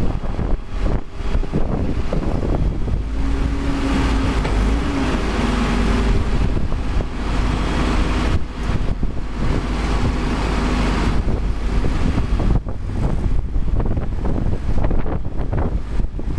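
Cat 420E backhoe loader's diesel engine running steadily, with wind rumbling on the microphone.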